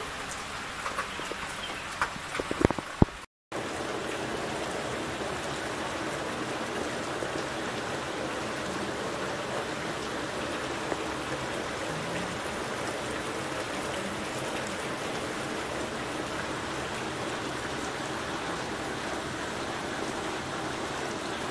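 Rain falling steadily, an even hiss of rain on the ground and surfaces. A few sharp clicks stand out about two to three seconds in, just before a brief break in the sound.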